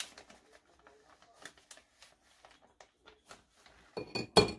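Faint, scattered scrapes and ticks of a metal spoon spreading tomato sauce over a pizza crust, then a sharp knock near the end.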